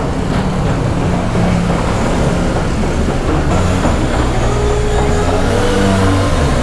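Motor-vehicle engines running as a steady low drone, with the pitch shifting and rising briefly about five seconds in.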